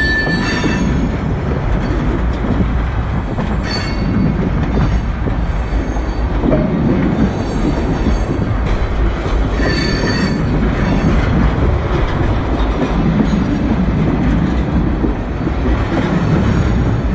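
Tank cars of a Union Pacific freight train rolling past: a loud, steady rumble of steel wheels on rail, with brief high wheel squeals near the start, about four seconds in and again around ten seconds.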